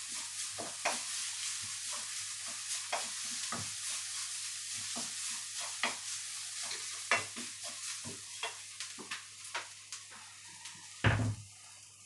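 A chilli stir-fry sizzling in a steel wok, with the taps and scrapes of a wooden spatula against the pan as it is stirred, every half second to a second. The sizzle dies down a little near the end, and about a second before the end there is one loud thump, the loudest sound here.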